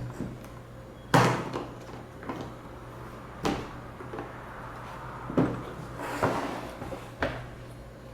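A series of about five separate knocks and clunks, like hard objects being handled and set down, the first about a second in and the loudest. No drill motor is heard running.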